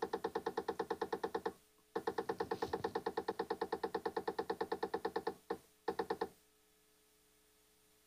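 Tenveo PTZ camera's pan-tilt motor rattling in fast, even knocks, about ten a second, like a woodpecker, during a boot-up sequence that is not supposed to go this way. It pauses about a second and a half in, starts again, and stops after two short spurts about six seconds in.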